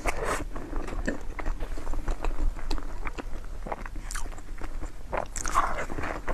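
Close-miked chewing and biting of a person eating a mukbang meal: irregular short crunches and clicks with mouth noises.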